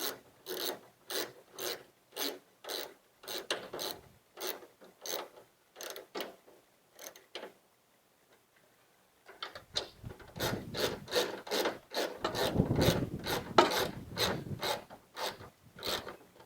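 Hand socket ratchet clicking in steady back-and-forth swings, about two a second, as screws are tightened down. After a pause of about two seconds it starts again, faster, mixed with heavier rubbing and knocking of the work, which is the loudest part.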